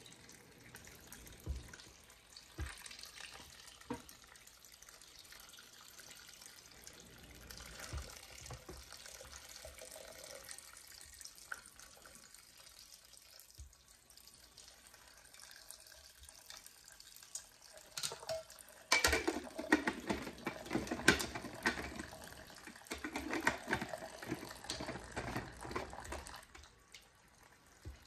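Sweet tea splashing and sloshing in a large glass jar, with scattered knocks and clinks of handling. The liquid sound grows louder for several seconds in the second half, then dies away.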